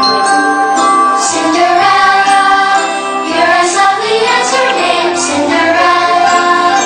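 Fireworks-show soundtrack music with singing: a song with female and children's voices over orchestral backing, played loud and steady throughout.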